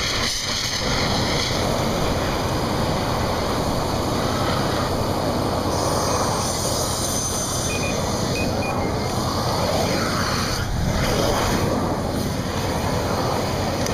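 A dry chemical fire extinguisher discharging with a hiss onto a large fire burning in a steel trough, over the steady rushing noise of the flames. The hiss is strongest near the start and again about six seconds in.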